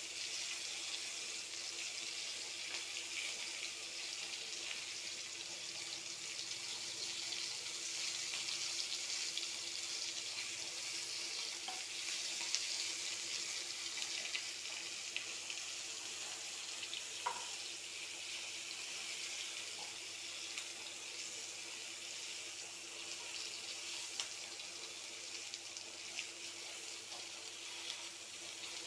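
Bitter gourd strips, green chillies and curry leaves sizzling as they shallow-fry in hot oil in a pan, a steady hiss with scattered small crackles.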